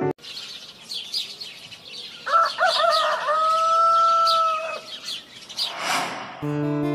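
A rooster crows once over steady twittering of small birds, a morning sound effect. Near the end a short whoosh sweeps past and music begins.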